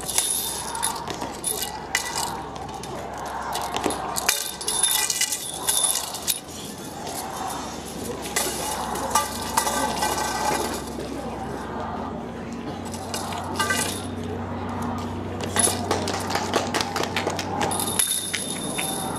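Long staff knocking and clattering against stone paving in a string of sharp, irregular clicks and clinks, with voices in the background.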